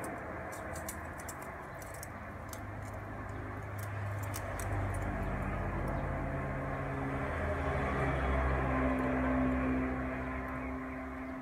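An engine hums, growing louder to a peak about nine seconds in and then easing off, like a passing vehicle. In the first few seconds there are small metallic clicks from a belt buckle being fastened.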